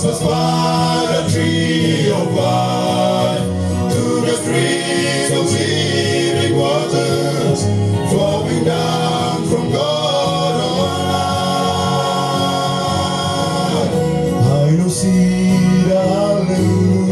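Male gospel vocal group singing in harmony into microphones, over an electronic keyboard holding steady bass notes.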